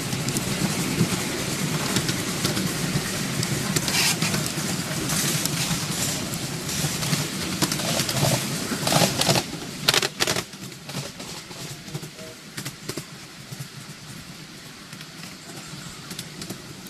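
Ride-on miniature railway train running along the track: a steady rumble and clatter of the passenger cars' wheels on the rails with scattered sharp clicks, the noise falling to a quieter level about ten seconds in.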